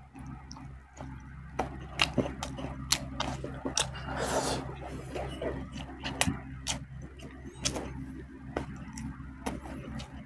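Close-miked eating: irregular wet mouth clicks, lip smacks and chewing, several a second at times, over a faint low steady hum.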